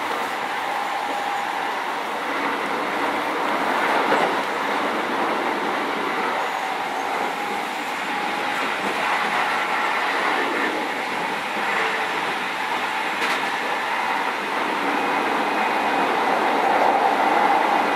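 Steady running noise inside a Keio 7000 series electric commuter car under way: wheels on rail with a faint steady whine through it, swelling about four seconds in and again near the end.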